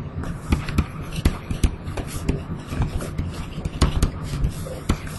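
Stylus tapping and scraping on a pen tablet while a word is handwritten: irregular sharp clicks, several a second, over a steady low hum.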